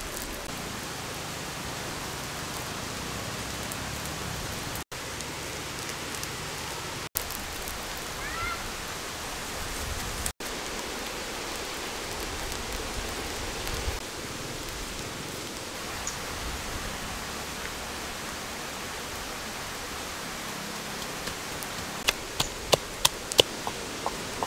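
Pig intestines sizzling on a hot flat stone over a wood fire: a steady frying hiss, broken by three very brief gaps, with a quick run of sharp pops near the end.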